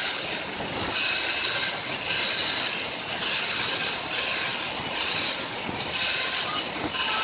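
Electric angle grinder with its disc biting into a block of andesite stone while hollowing out a stone mortar: a steady high-pitched grinding screech that swells and eases about once a second as the disc is worked across the stone.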